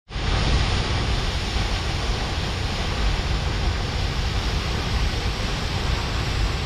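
Waterfall: a steady rush of falling water, heavy in the low end and unchanging, starting just after a brief dropout at the cut.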